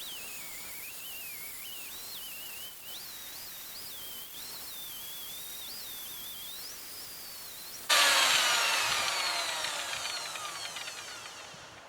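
Highland Park wet grinder/polisher running with a stone held against its 50-grit pad, a wavering whine shifting in pitch as the pressure changes. About eight seconds in a sudden louder noise starts, its pitch falling as it fades over a few seconds, as the wheel winds down.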